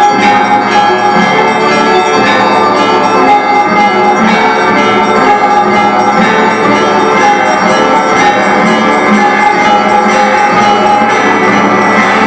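Russian-style bell ringing (zvon) on a set of tuned bells: many higher and lower bells struck together in a dense, unbroken peal.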